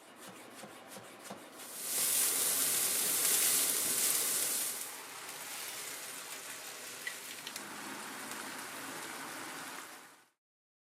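Food frying in oil in a pan, a steady sizzling hiss. It grows louder about two seconds in and eases back after about five seconds, with a few small pops, then cuts off suddenly near the end.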